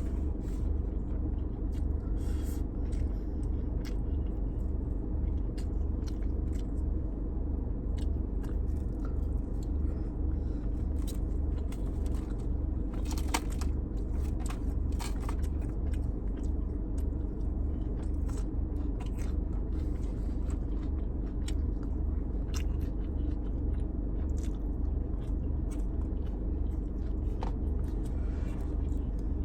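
A person chewing and biting food close to the microphone, with scattered short clicks and smacks, over a steady low rumble.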